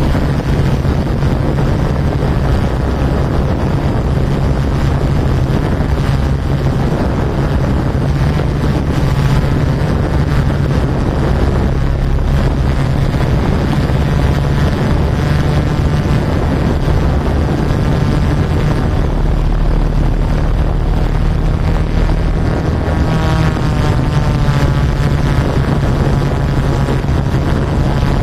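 Yuneec Typhoon Q500 4K quadcopter's motors and propellers buzzing in flight, the pitch wavering as it speeds up and manoeuvres, with wind buffeting the microphone.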